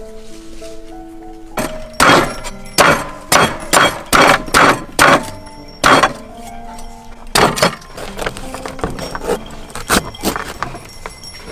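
Kitchen knife chopping into a durian's thick spiky husk on a wooden table: a quick series of sharp cracking strikes, then a few more spaced ones, over background music.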